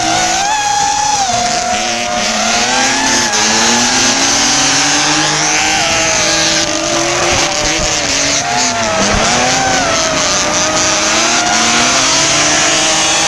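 A camera-carrying FPV drone's propellers whine, their pitch rising and falling with the throttle, over two drift cars. The cars' engines rev up and down as their tyres squeal through a tandem drift.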